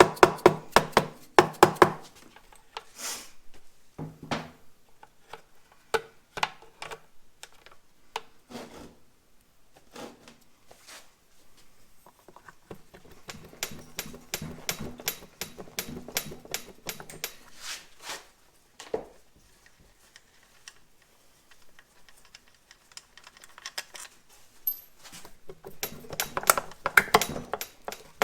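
Hand tools clicking and knocking against the metal of a Yamaha DT250 engine during disassembly, with runs of quick, rapid clicking and metal parts clinking.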